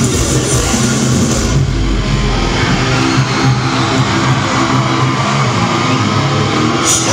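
Loud live metalcore band: heavy distorted guitars and bass with drums playing a droning riff, as heard from within a large concert hall.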